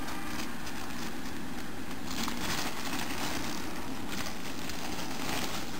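Clear plastic packaging rustling and crinkling as a plush toy is handled and unwrapped, over a steady background hiss.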